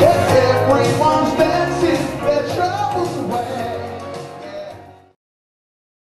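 Band music with a male voice singing, fading out steadily and cutting to silence about five seconds in.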